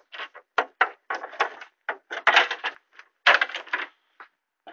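Irregular scuffs, rustles and knocks from a handheld camera being moved about, coming in short uneven bursts with brief gaps between them.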